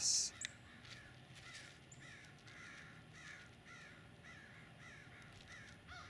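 Crows cawing faintly, a steady run of calls about three a second.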